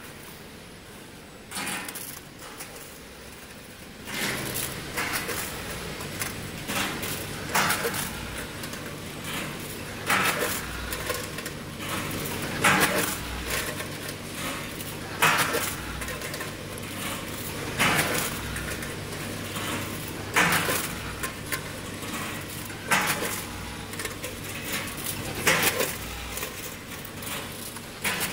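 Multihead combination weigher running on a line of small plastic medical parts. Its feeders hum steadily from about four seconds in, and about every two and a half seconds comes a clatter as the hoppers dump a weighed batch of plastic parts down the discharge chute, a rate of about 24 discharges a minute.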